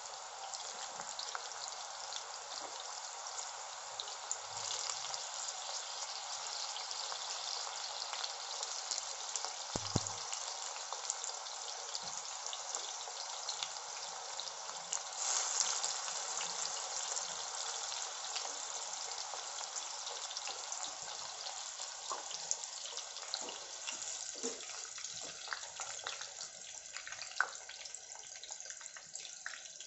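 Cubes of suran (elephant foot yam) deep-frying in hot oil in a kadhai: a steady sizzle with fine crackling, thinning toward the end into sparser pops.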